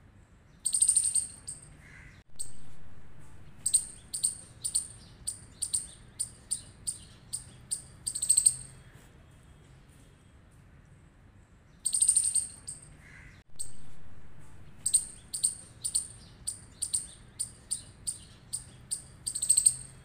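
A small striped squirrel's high-pitched chirping calls. Two longer chirps are followed by a run of short, sharp chips at about two a second, and the same sequence plays twice, as a loop.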